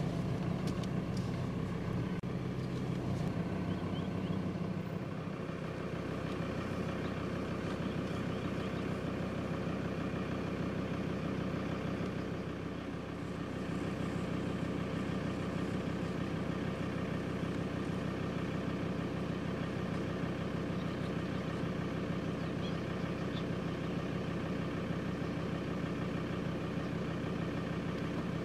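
Vehicle engine idling steadily, heard from inside the car.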